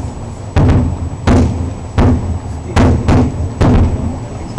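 Firework shells bursting in quick succession, about seven loud bangs spaced half a second to a second apart, each followed by a low rolling rumble.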